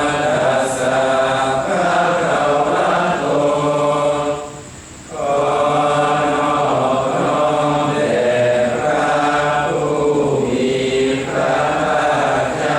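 A group of voices chanting Thai Buddhist chant in unison, in long drawn-out phrases on held notes, with a brief pause for breath about five seconds in.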